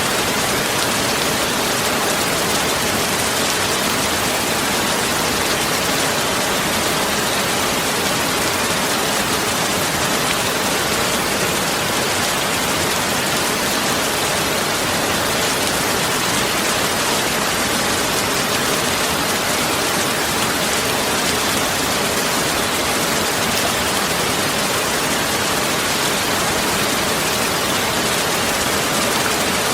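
Steady, unbroken hiss of noise spread evenly from low to high, with no changes or separate events.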